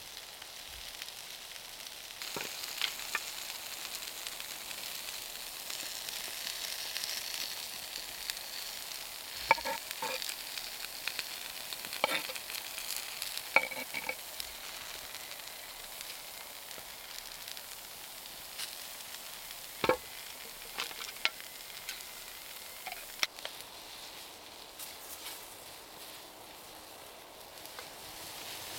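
Food sizzling in a pan over a campfire: a steady hiss broken by several sharp clicks and crackles.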